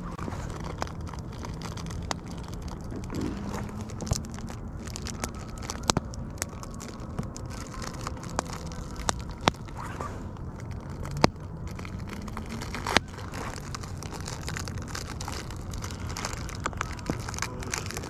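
Wood bonfire crackling, with sharp irregular pops throughout and a few louder ones in the second half, over a faint low steady hum.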